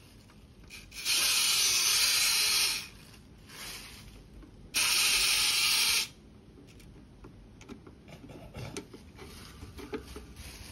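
Two loud bursts of hissing, the first about two seconds long and the second about a second and a half, then faint clicks and taps of small plastic parts as the Woodstock figure on a plastic toy is pushed along by hand.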